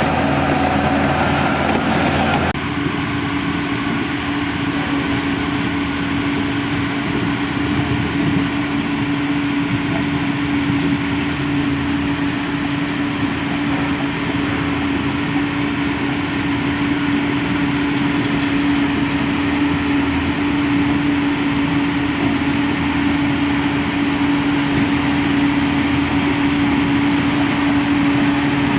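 Heavy diesel engine of a bulldozer running steadily with a constant hum. The sound changes abruptly about two and a half seconds in, then carries on evenly.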